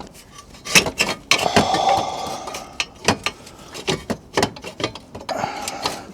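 Metal clanking and scraping, a string of short irregular knocks with a longer scrape about a second and a half in, as a loosened exhaust part is worked around under the car.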